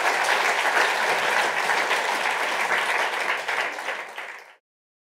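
Audience applauding, thinning out near the end and then cut off abruptly about four and a half seconds in.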